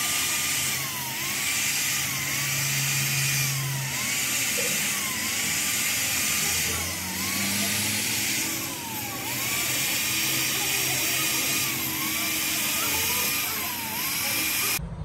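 Handheld power valve-seat grinder running on the valve seats of a Bedford truck cylinder head, a high hiss with a whine that dips in pitch again and again as the tool is bore down on each seat and slowed by the load. It cuts off abruptly near the end.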